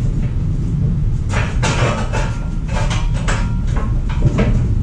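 Irregular metal clanks and rattles from the gantry crane's lifting chain and rigging being handled over the lathe, a handful of knocks in the middle stretch and the loudest near the end, over a steady low hum.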